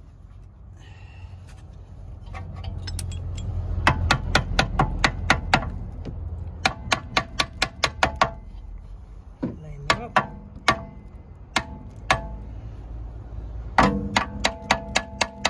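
Ratchet wrench clicking in quick runs of evenly spaced clicks, four runs with pauses between, as the rear brake caliper's bolts are wound in; a low rumble sits underneath.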